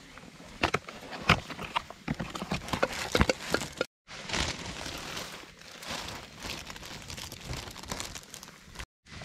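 A cardboard box being handled and opened, with a run of sharp clicks and scrapes. After a short break, a plastic bag crinkles as a Bawloo hot sandwich maker is pulled out of it.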